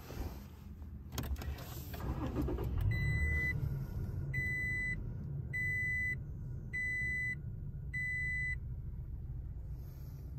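Toyota Tacoma engine starting and settling into a low idle, then five dashboard warning chimes about a second apart. The chimes go with the dash warning that a key fob's battery is low.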